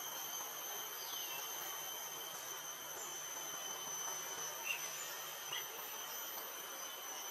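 Steady, high-pitched drone of insects, with a few short bird chirps: one falling chirp about a second in and two brief chirps near the middle.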